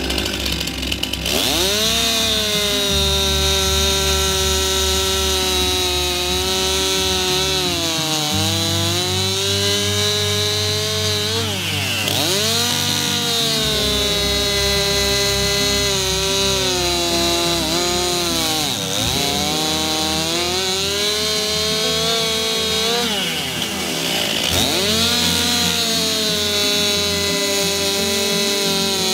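Stihl MS 261 C two-stroke chainsaw running at high revs while cutting through a log, with a chain filed too high (the hook filed away). The engine pitch sags under load a few times, deepest around twelve, nineteen and twenty-four seconds in, and picks back up each time.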